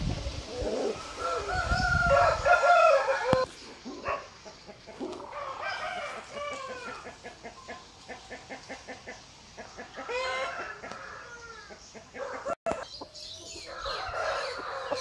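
Aseel roosters crowing and clucking: a long crow in the first few seconds, then quick runs of short clucks and further calls.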